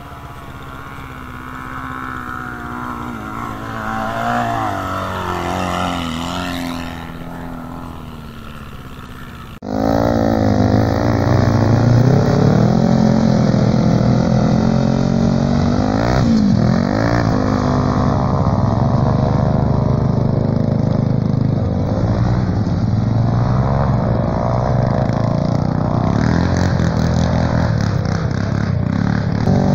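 Quad bike engines revving and running, rising and falling in pitch as the machines ride. About ten seconds in, the sound switches suddenly to louder, closer engine revving that goes on steadily varying in pitch.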